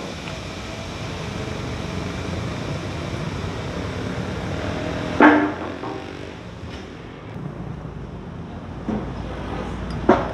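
Steady workshop and traffic background with two sharp metallic clanks, one about five seconds in and one near the end; the first rings briefly.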